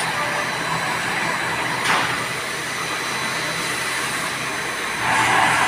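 CNC vertical machining centre running its program: a steady machine whir with faint high steady tones. There is a brief clack about two seconds in, and the noise grows louder about five seconds in.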